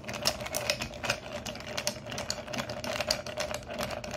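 Ice cubes clinking against a tall glass as a long bar spoon stirs them round, a quick, irregular run of clinks. The glass holds only ice at this point: it is being chilled before the whisky is poured for a highball.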